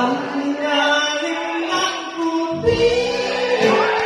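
Amplified live singing over a band's backing, with long held notes: a low steady note that steps up a little, then a higher held note about two and a half seconds in.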